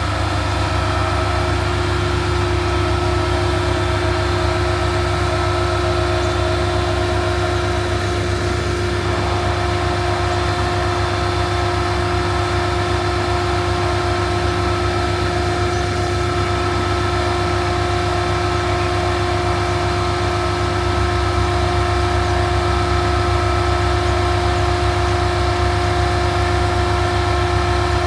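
A vehicle engine idling steadily: a constant low hum with a few steady tones over it.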